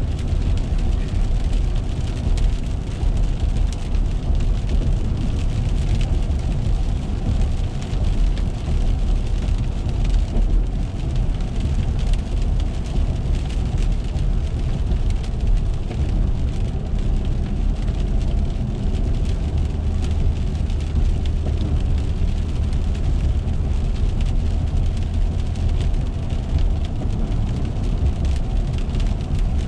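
Steady road and engine rumble heard from inside a car driving on wet pavement, with the hiss of tyres on the wet road and rain striking the windshield.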